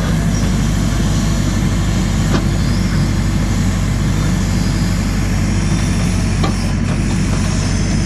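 JCB 4CX backhoe loader's diesel engine running steadily while the backhoe arm swings and reaches out under hydraulic power, with a couple of light knocks about two seconds in and again past six seconds.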